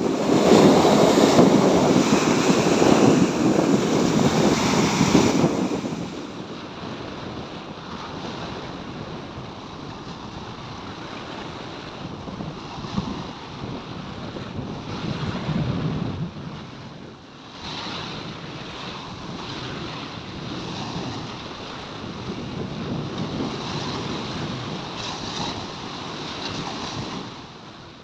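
Small waves breaking and washing up on a sandy beach in slow swells, with wind on the microphone; it is loudest for the first six seconds, then steadier, and fades out near the end.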